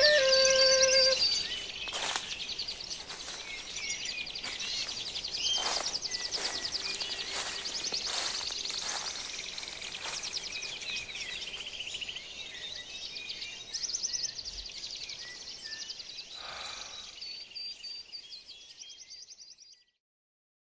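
A chorus of birds chirping and calling, with rapid high trills, after the last sustained flute notes of the music end about a second in. The birdsong fades and cuts off shortly before the end.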